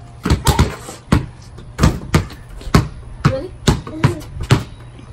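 Two basketballs being dribbled on concrete: a string of bounces, about one to two a second, the two balls' strikes overlapping in an uneven rhythm.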